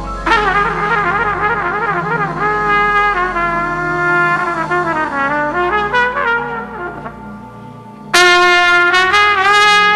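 Solo trumpet playing a slow melody with vibrato over a steady low accompaniment, breaking into a loud, bright held high note about eight seconds in.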